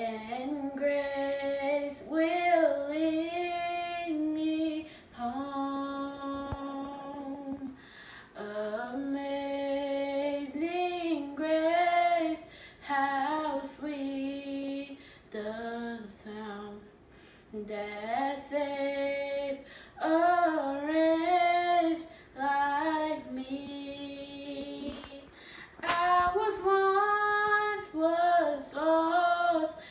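A young female voice singing solo, slow phrases of long held notes with short pauses for breath between them.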